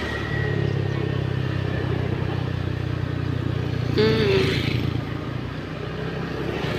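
An engine running steadily, a low hum that starts just after the opening and fades out about five seconds in, with a brief higher-pitched sound, the loudest moment, about four seconds in.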